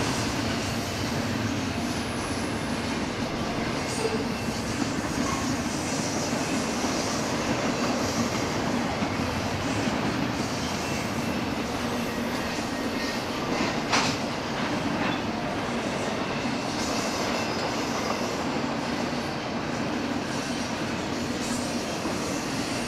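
Freight train cars rolling past on the rails, a steady rumble of wheels on track, with one sharp clank about fourteen seconds in.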